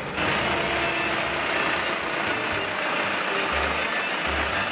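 Hyundai minibus engine running at the curb, under a steady rush of street noise.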